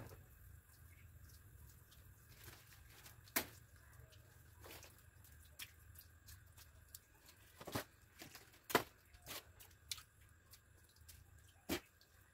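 Water dripping onto the wet bamboo slats: a handful of irregular, sharp drops over a faint low background, the loudest about nine seconds in.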